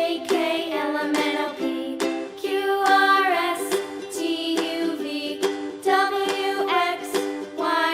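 Upbeat background music led by a plucked ukulele, with a bending sung or whistled melody line.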